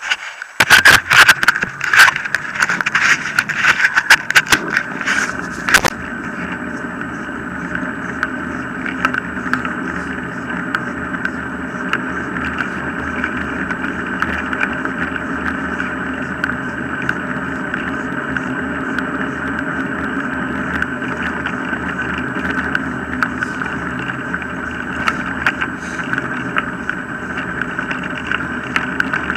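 Wheels of a dog-drawn mushing rig rolling steadily on a tarmac path. For the first six seconds, loud knocks and clatters ride over the rolling noise.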